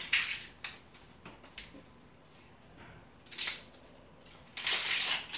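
Hands rummaging in a wire-basket cart: a few light clicks and knocks in the first second and a half, a short scrape a little past the middle, then a rustle near the end.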